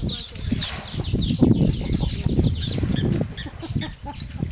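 Wind buffeting the microphone with a loud, uneven low rumble, while birds chirp repeatedly in the background.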